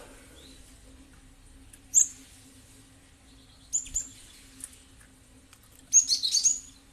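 Cinereous tit (gelatik batu) calling: a sharp high note about two seconds in, a quick double note near four seconds, then a fast run of chattering notes near the end.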